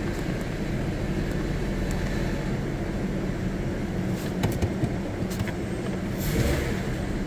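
Steady low mechanical hum like an idling car engine. A few light clicks come about four to five and a half seconds in, and there is a brief rustle near the end.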